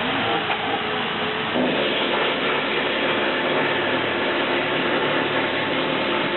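A machine running steadily: a continuous whirring hiss over a low hum, changing in tone about one and a half seconds in.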